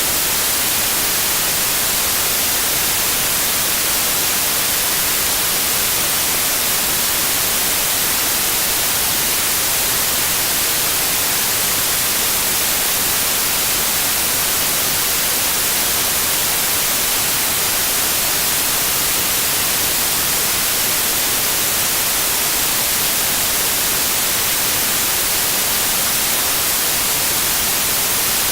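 Steady, unbroken white noise: an even hiss, strongest in the high frequencies.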